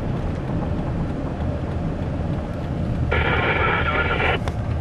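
Steady low rumble inside a vehicle's cabin. About three seconds in comes a thin, narrow-band burst from a two-way radio, likely the reply to a radio call, lasting just over a second.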